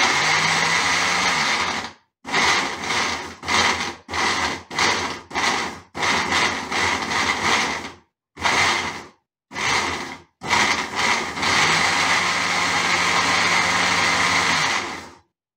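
Countertop blender chopping tomatoes, onion and coriander into salsa, run in pulses: a loud run of about two seconds, a string of short bursts, then a steady run of about four seconds that cuts off near the end.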